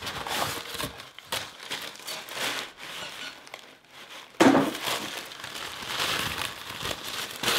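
Crumpled packing paper rustling and crinkling as it is handled in and pulled out of a cardboard shipping box, with a louder surge of crinkling about four and a half seconds in.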